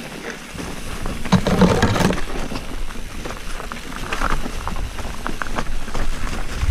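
Mountain bike riding down a rough, stony trail: tyres running over loose stones and the bike rattling and knocking, with a louder burst of knocks about a second and a half in.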